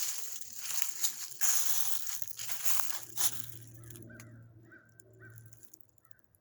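Footsteps crunching through dry leaf litter for about the first three seconds, then fading. From about four seconds in, a bird gives a run of short, repeated calls, several a second.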